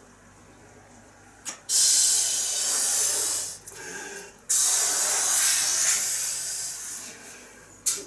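A long rocket balloon being blown up by mouth: two long, hissing breaths of air pushed into it, with a short pause between them.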